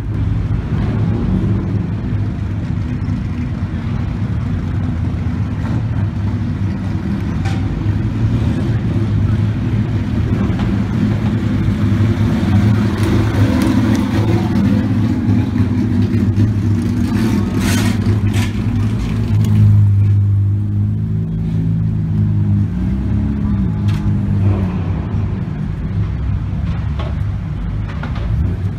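Engines and exhausts of modified cars driving slowly past, one after another: a steady deep engine drone with a few brief rises and falls in revs in the later part.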